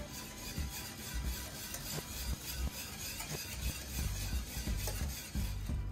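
A wire whisk stirring egg-and-cream custard in a stainless steel saucepan on a gas burner. It makes a steady scraping with occasional light clicks of the wires on the pan, over low knocks.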